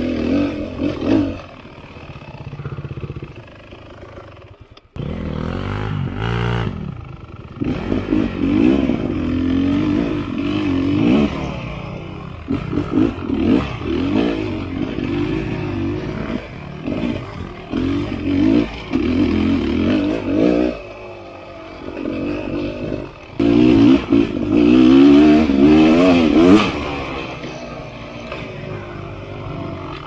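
Dirt bike engine revving up and falling back again and again as the bike is ridden over rough single track, the loudest burst of throttle coming about three-quarters of the way through, with rattles and clatter from the bike over the bumps.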